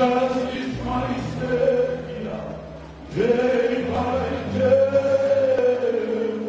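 A man singing a gospel chant into a microphone in two long phrases of held notes, over sustained low accompaniment.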